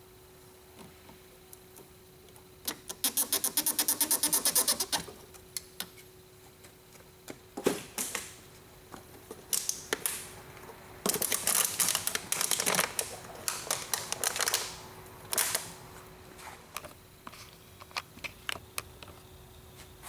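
Hand work on a fuel line: a quick run of rapid, evenly spaced clicks about three seconds in. Then scattered clicks, and a longer stretch of clicking and scraping, as the supply line from the tank is disconnected.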